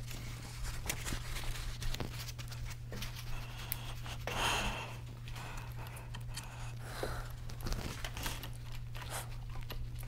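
Felt battery insulation boot rustling and scraping as it is worked down over a car battery by hand. There are a few small clicks and a louder rustle about four and a half seconds in, over a steady low hum.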